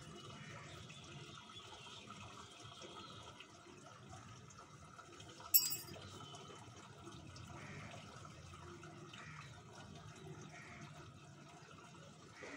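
Faint steady background noise with a low hum, broken once about five and a half seconds in by a single sharp, ringing clink.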